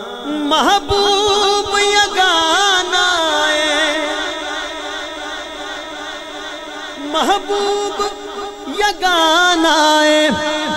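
A male voice singing a long, ornamented melismatic phrase of a Punjabi devotional naat, amplified through a microphone, with wavering vibrato and slow pitch glides, the phrase breaking and starting again a few times.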